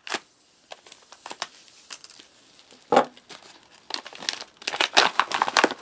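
Foil ration pouch being slit open with a multitool knife and handled: crinkling and tearing of the stiff packaging, with a louder crackle about three seconds in and denser crinkling over the last two seconds.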